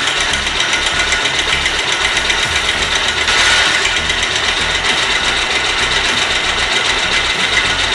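Bajaj Pulsar's air-cooled single-cylinder engine idling with a fast, steady 'kit kit kit' tick from the timing chain: the chain tensioner has slowly let go of its grip and the chain has gone slack.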